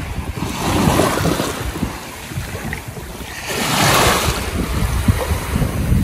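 Small waves washing up onto a sandy beach, the surf swelling twice: once about a second in and again, louder, from about three and a half seconds on. Wind buffets the microphone underneath.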